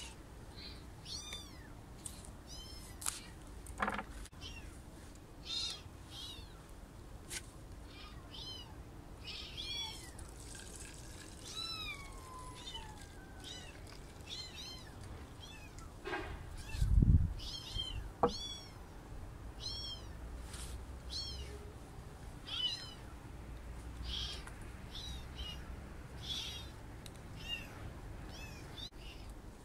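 Orphaned newborn kittens mewing over and over in short, high-pitched cries, the sound of hungry kittens. About halfway through there is a single louder thump, followed shortly by a sharp click.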